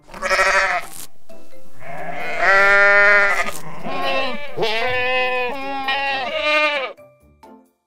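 Sheep bleating three times: a short bleat, then two long ones, the last with a wavering pitch.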